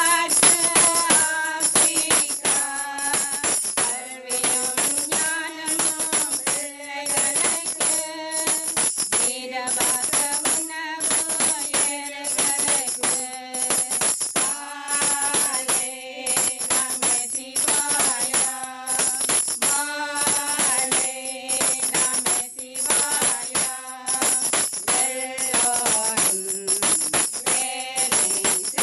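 A group of women singing a song in unison into a microphone, the melody moving in held notes, with jingling hand percussion shaken steadily on the beat.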